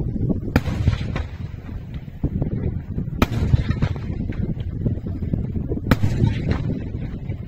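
Daytime fireworks: aerial shells bursting overhead. There are three sharp loud bangs about two and a half seconds apart, over a continuous low rumble of many smaller bangs.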